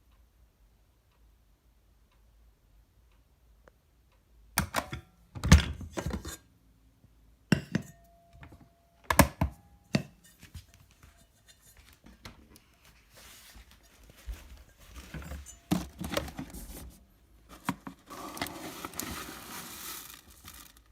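Kitchen handling sounds: several sharp thunks and knocks of things being set down, then rustling and crinkling like packaging being torn open, and a steady hiss near the end.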